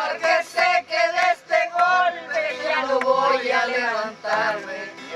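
A woman and other voices singing a song together, with acoustic guitar accompaniment.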